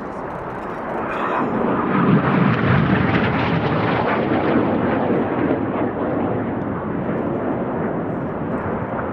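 Jet noise from a formation of BAE Hawk T1 jets, Rolls-Royce Adour turbofans, passing overhead. The sound swells about a second in, is loudest around two to three seconds in, then holds steady and eases slightly.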